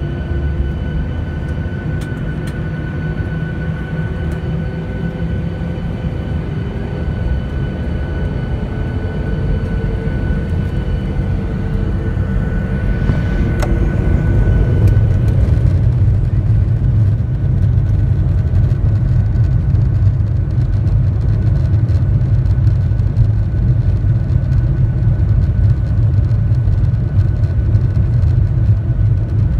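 Cabin sound of a Boeing 737-800's CFM56-7B turbofans: a steady engine hum with whining tones that slowly rise, then from about halfway a louder, deeper rumble as takeoff thrust is set and the airliner rolls down the runway.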